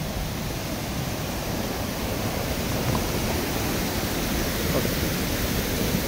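Steady rushing roar of Ryuzu Falls, a cascade waterfall, an even wash of falling water with no breaks.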